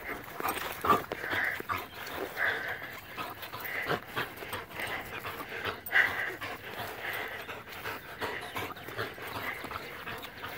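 Dog panting and huffing while playing tug-of-war with a rubber ring toy, with a few knocks from the tussle.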